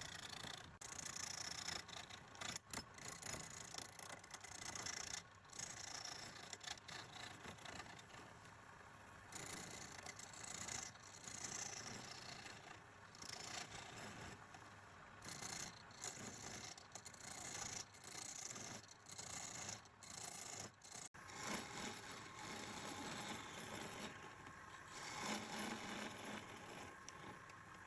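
Hand scraping and rubbing on metal in irregular strokes with short pauses, as rust is worked off old lathe parts.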